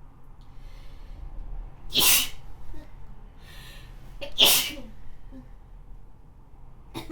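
Two wet, snotty sneezes from a person with a cold, about two and a half seconds apart. Each comes after a sharp breath drawn in.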